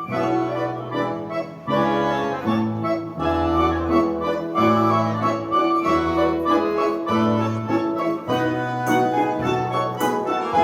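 Instrumental music: held, reedy chords over a bass line that moves to a new note about every second.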